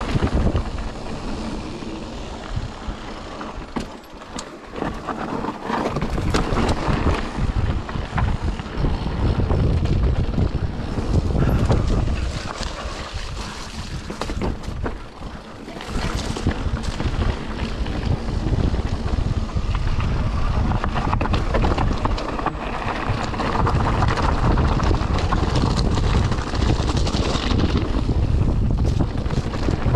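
Riding noise from a mountain bike on a rough trail: wind buffeting the microphone, with a steady run of knocks and rattles from the bike.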